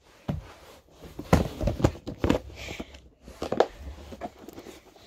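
Handling noise from a package: a string of irregular light knocks and rustles.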